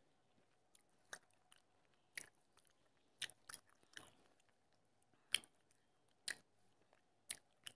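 Quiet eating sounds of chhanar payesh, a soft milk pudding, being spooned from a small plastic cup with a wooden spoon and eaten: about nine short, sharp clicks and smacks spaced roughly a second apart, with near silence between them.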